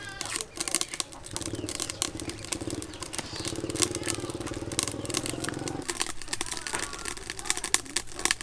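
Sharp clicks and taps of a kitchen knife peeling and trimming garlic cloves against a wooden cutting board. A small engine drones in the background from about a second in until about six seconds in.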